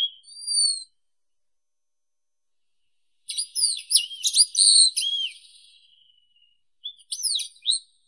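Wallcreeper singing: a high rising whistle and a short falling note, then after a pause about two seconds of quick up-and-down whistled notes, and a shorter run of sweeping notes near the end.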